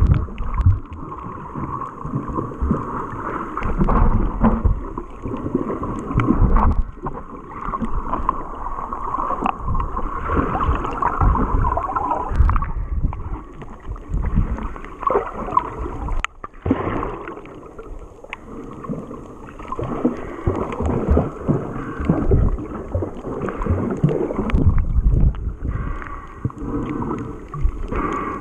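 Muffled underwater water noise from a camera held beneath the surface while snorkeling: sloshing and rumbling water movement that swells and fades irregularly.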